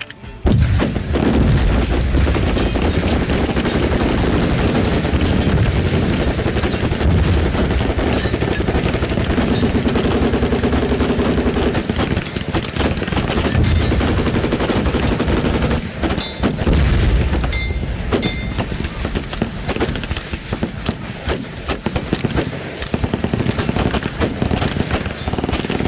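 Loud, sustained rapid automatic gunfire, starting about half a second in and running almost without pause, with a couple of brief breaks late on.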